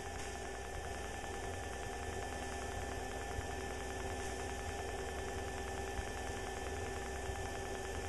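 Steady drone of a light single-engine airplane in cruise, heard inside the cockpit: an even low hum with a few thin, unbroken tones and a light hiss.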